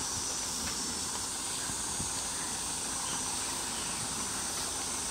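Steady hiss of falling rain, with a low rumble underneath.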